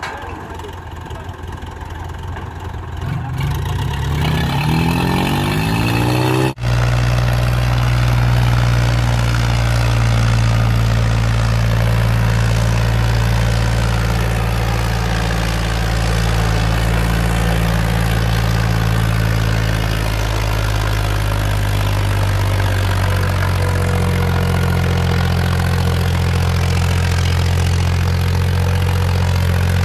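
Tractor diesel engine revving up, its pitch rising, then after a sudden brief drop-out about six seconds in, running steadily with a slight change in pitch about two-thirds of the way through.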